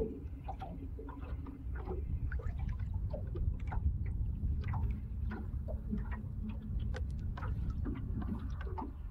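Water lapping and clicking against the hull of a small drifting boat, many short irregular ticks over a steady low rumble.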